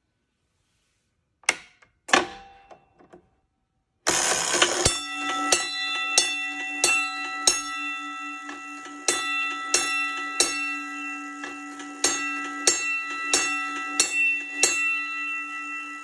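Two clicks, then a Holtzer-Cabot electro-mechanical fire alarm gong striking a coded signal: five strokes, a pause, three strokes, a pause, five strokes, tapping out box number 535. A mechanism whirs under the strokes, and the brass gong's ring hangs on and dies away after the last stroke.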